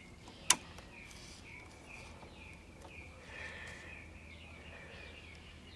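A single sharp click about half a second in as power is switched on to an old tube radio-phonograph through a 25-watt light-bulb current limiter. After it, only a faint low hum and faint high chirping in the background.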